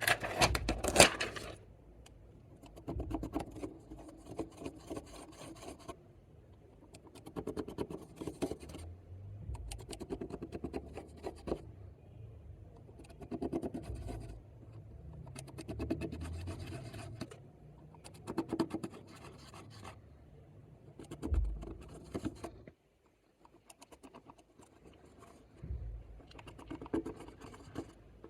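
Clear slime being worked by hand with makeup mixed in, making sticky crackling and squishing in repeated bouts every two to three seconds. The loudest bout comes right at the start, and there is a short pause a little past the middle.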